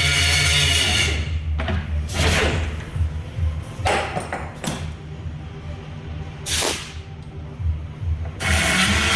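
A power tool running on the metal hinge cuts off about a second in; a few sharp knocks and scrapes of metal parts being handled follow, and the tool starts up again near the end.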